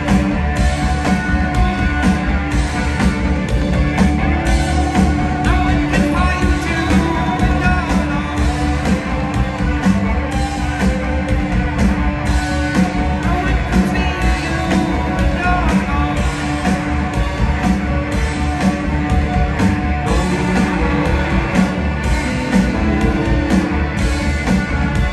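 Psychedelic rock band playing live in a concert hall: heavy bass and drums keep a steady driving beat under electric guitars, with a singing voice in the mix.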